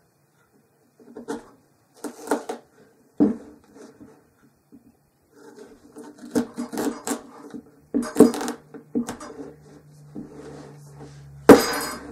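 Kitchen knife being forced down through the hard rind of a raw spaghetti squash on a wooden table: a series of knocks and thuds as the blade is pushed and worked through, the loudest near the end.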